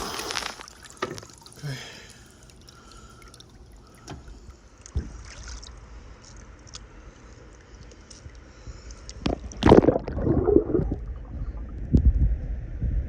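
Water in an above-ground swimming pool sloshing and splashing as someone moves in it, with the loudest splashing about nine and a half seconds in.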